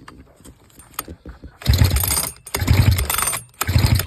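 Sachs Dolmar 112 chainsaw being cranked over by its pull-starter cord, about three pulls a second apart starting a couple of seconds in, with a compression tester in the spark plug hole so the engine does not fire. It is a wet compression test with oil in the cylinder, and the reading stays low: the owner suspects worn piston rings.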